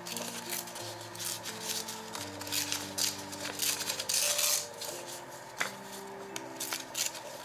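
Sheet of printed paper being torn by hand: a run of short dry rips and rustles, most intense about three to four and a half seconds in.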